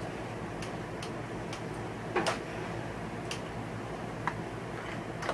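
Scattered light metal clicks as a rear wheel is fitted onto a Murray riding mower's axle hub, with one louder clank about two seconds in, over a steady low hum.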